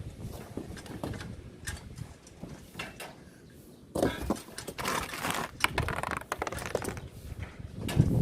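Irregular knocks, clicks and scraping of parts being handled during hand assembly work, busier and louder from about four seconds in.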